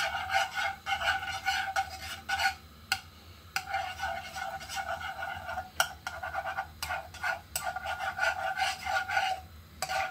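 Metal spoon scraping and stirring around a non-stick frying pan as margarine melts, in repeated strokes with a brief pause about three seconds in and another near the end, and a few sharp clicks of the spoon against the pan.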